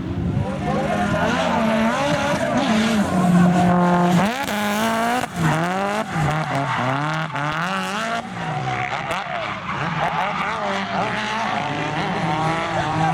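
Turbocharged Nissan SR20DET four-cylinder in a Lada 2105 revved hard while drifting, its pitch rising and falling again and again with throttle and gear changes, held level near the top for about a second around four seconds in. Tyre squeal runs underneath.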